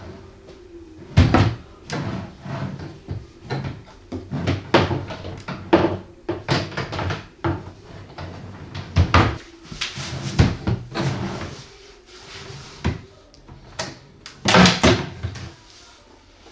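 Wooden cabinet doors being opened and shut again and again, with a string of irregular knocks and bangs as the doors bang against each other. The loudest bangs come about a second in, around the middle, and near the end.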